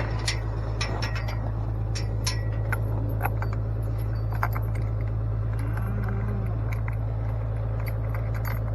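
A motor running at a steady idle, with frequent light metallic clinks and rattles over it.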